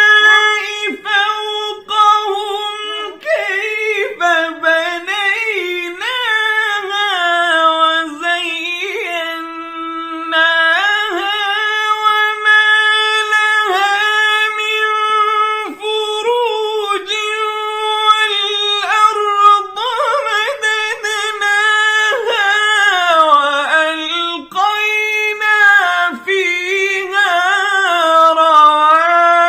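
A child reciting the Quran in the melodic tajweed style, unaccompanied. The high voice holds long notes and ornaments them with winding runs, pausing briefly for breath every few seconds.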